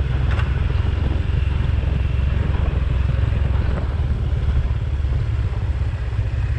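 Motorcycle engine running steadily with a low, even note.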